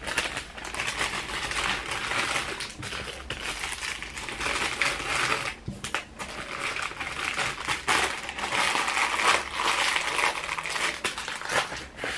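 Plastic packaging of diamond painting kits crinkling and rustling as it is handled, with many small clicks and crackles throughout.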